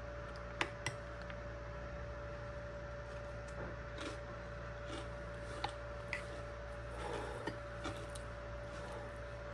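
Scattered light clicks and taps of kitchen utensils on dishes, a few seconds apart, over a steady hum.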